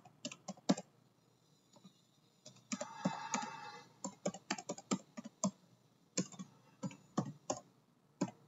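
Typing on a computer keyboard: a run of faint, irregularly spaced key clicks as an email address is entered, with a short hiss about three seconds in.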